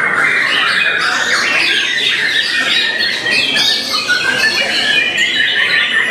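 Several caged white-rumped shamas (murai batu) singing at once at a songbird contest, a dense unbroken chorus of rapid, overlapping phrases.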